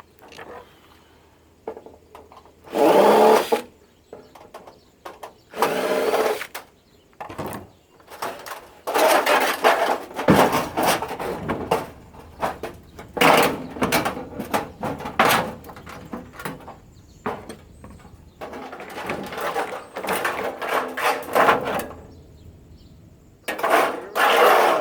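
Air purifier being dismantled for scrap: irregular bursts of clattering, scraping and handling of its metal and plastic parts, with quiet gaps between.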